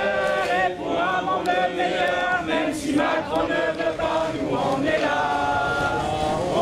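A group of people singing a slow song together in long held notes, phrase by phrase with short breaks between.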